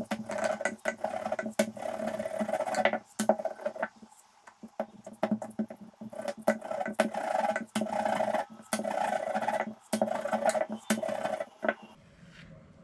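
Wooden rolling pin rolled back and forth over paratha dough on a silicone mat on a wooden table: a steady hum in strokes of about a second, with clicks and knocks as the pin turns. It pauses briefly about four seconds in and stops about a second before the end, when the dough is lifted off the mat.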